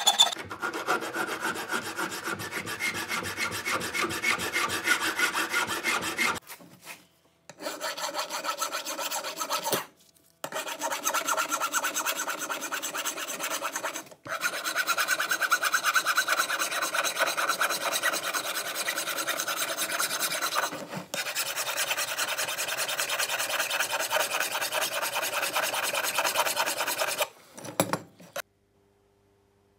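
Flat steel hand file rasping across the steel frame of a C-clamp, filing down its rusty, gouged edge. The filing goes in long steady runs broken by a few short pauses and stops shortly before the end.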